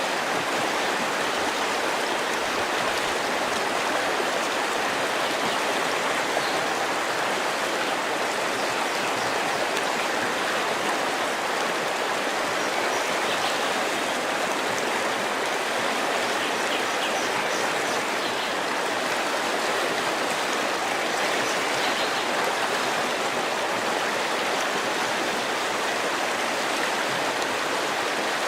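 River water flowing steadily, an even rushing without breaks.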